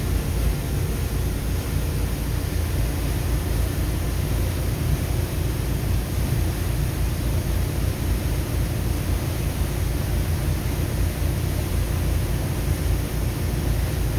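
Tollycraft 44 motor yacht underway at about 18 knots: the steady drone of its engines mixed with the rush of wind and water past the hull, unchanging throughout.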